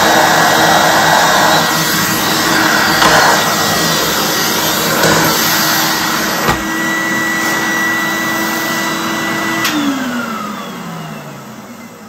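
1991 Numatic Henry HVR200 vacuum cleaner running steadily with a motor whine while its floor tool is pushed over a rug, with a knock about six and a half seconds in. Near the end it is switched off with a click and the whine falls in pitch as the motor spins down.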